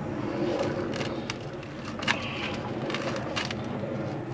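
A steady low mechanical hum, with scattered light clicks and scrapes as a copper refrigerant line is gripped and worked by hand.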